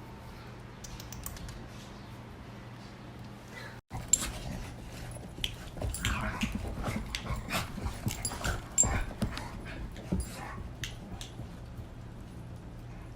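A pet moving about and making short animal sounds: a string of clicks and scuffles that starts just after a brief dropout about four seconds in and eases off near the end, over a steady low hum.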